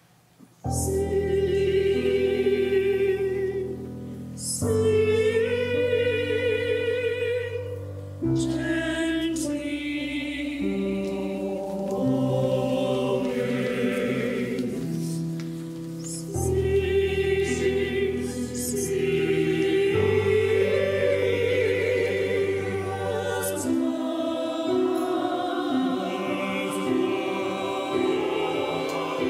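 Mixed choir singing sustained chords in harmony, coming in about half a second in, in several long phrases.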